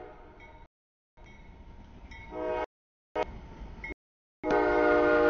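CSX freight locomotive's horn sounding for the grade crossing, a chord of steady tones that grows loudest from about four seconds in as the train comes up. The audio cuts in and out, with abrupt silent gaps.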